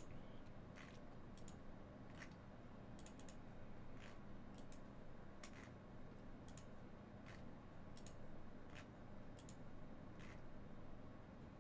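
Faint, irregular light clicks, about one or two a second, over a low steady hum.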